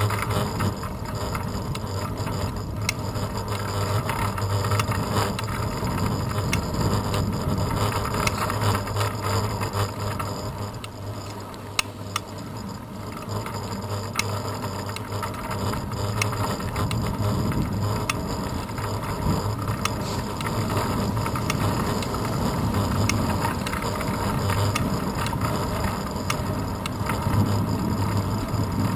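Riding noise from a bicycle on asphalt, picked up through a handlebar-mounted GoPro Hero 2 housing: a steady low rumble and wind, with many small rattles and clicks from the bike and mount.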